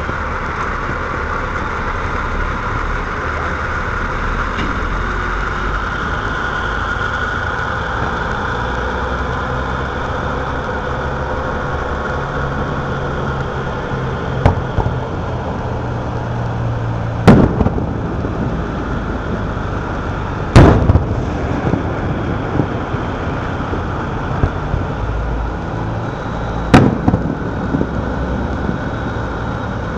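Aerial firework shells bursting at a distance: four sharp bangs spread over about twelve seconds, starting about halfway through, with a few fainter pops between them, over a steady background noise.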